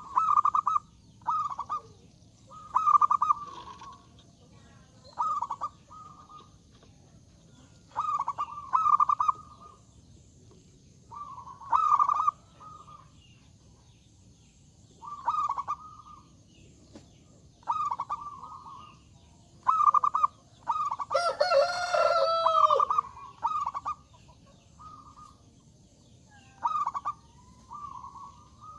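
Zebra dove (perkutut) cooing: short bursts of rapid notes repeated every couple of seconds. About two-thirds of the way in there is one longer, louder call with a bending pitch.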